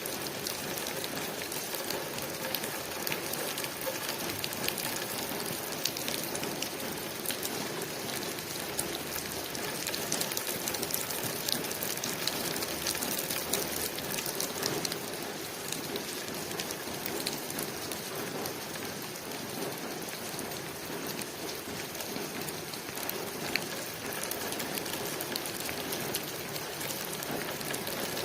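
Steady rain falling on a window pane: an even hiss dotted with many small drop ticks.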